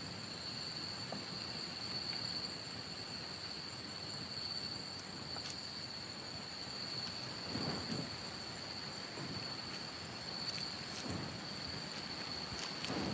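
Night insects keep up a steady high-pitched drone over a constant soft hiss, with a few soft low thuds about eight and eleven seconds in.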